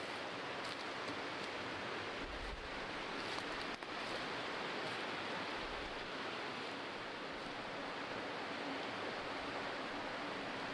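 Flowing river water rushing steadily, an even hiss close to white noise.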